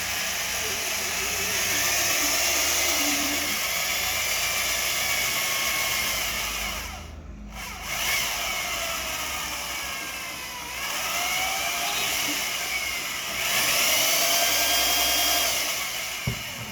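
Rotary power tool spinning a cleaning rod that carries a polishing-paste-loaded cloth inside an airsoft inner barrel. It runs in spells, its whine rising and falling in pitch, and stops briefly about seven seconds in before starting again.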